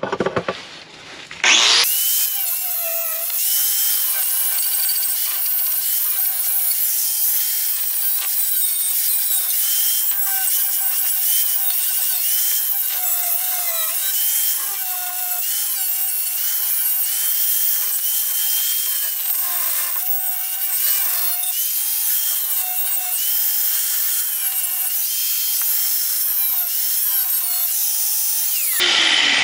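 Power grinder grinding on the steel body metal of a Range Rover Classic's rear wheel well. It spins up about two seconds in, its whine dipping again and again as it bites into the metal, and stops just before the end.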